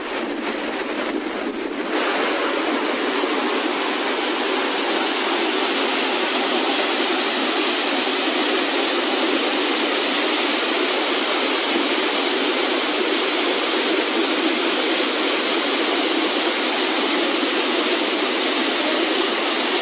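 Waterfall: a steady rush of falling water, a little quieter for the first couple of seconds, then louder and even.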